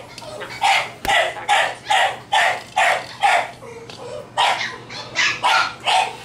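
Puppy barking in a quick, steady series of short high yaps, about two to three a second, with a brief pause around the middle.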